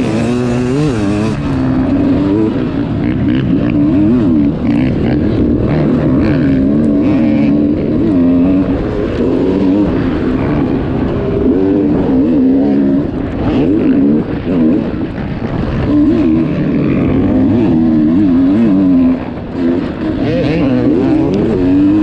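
Sherco dirt bike's engine under hard throttle on a dirt track, its note rising and falling again and again as the rider opens and shuts the throttle, with a brief drop near the end.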